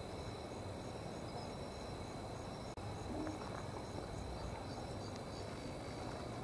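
Night insects calling: a steady high buzz with a small chirp repeating about twice a second, over a low background hum.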